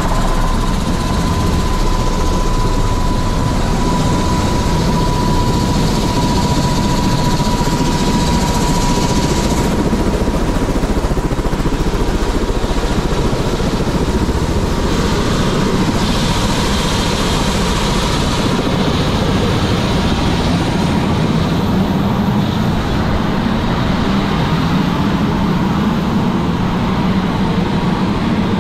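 Airbus H130 helicopter running on the pad with its rotors turning: a loud, steady rush of rotor and engine noise, with a high whine that fades out over the first several seconds.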